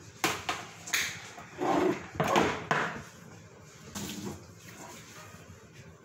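A series of short scrapes and knocks as the plastic pole of a stand fan is handled at a kitchen sink. The sounds are bunched in the first half, with a last weaker one about four seconds in.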